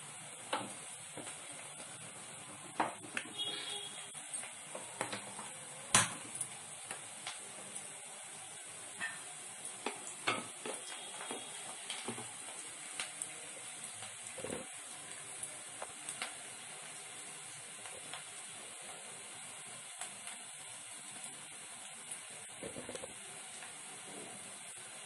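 Food sizzling in a pan on a gas stove, with a metal utensil knocking and scraping against the pot from time to time as it is stirred. There are a dozen or so sharp clanks, the loudest about six seconds in.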